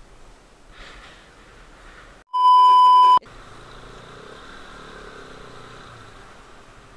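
A loud, steady, single-pitched bleep lasting just under a second, about two seconds in, edited into the track with the original sound cut out around it, as used to censor a word. Before and after it, only faint wind and road noise.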